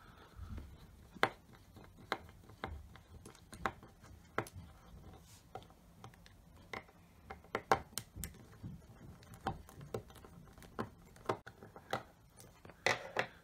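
Small screwdriver clicking against the tiny screws of a lighter watch's back lid as they are loosened: irregular sharp ticks, about one or two a second, with a quick cluster near the end.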